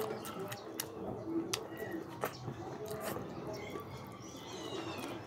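Close-miked eating sounds: wet chewing and mouth clicks, with fingers picking through saucy rice and fish.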